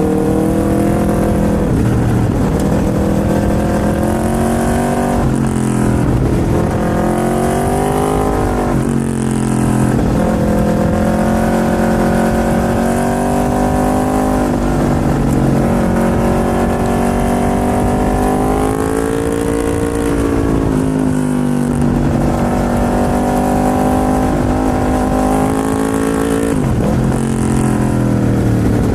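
Aprilia RSV4's V4 engine running under way, its pitch climbing as the bike pulls through the revs and dropping sharply at several gear changes, with longer stretches of steady cruising between them.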